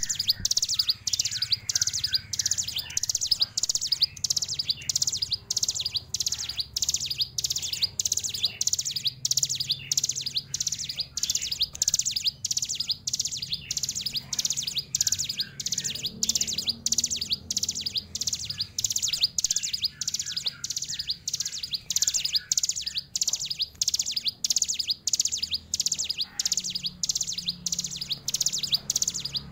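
A caged ciblek gunung (a mountain prinia) singing without a pause: a loud, high, rapid chattering song in phrases that repeat about twice a second.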